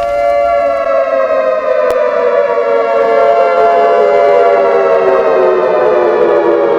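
A loud siren-like tone with many overtones, held and slowly falling in pitch, like a siren winding down. A faint click about two seconds in.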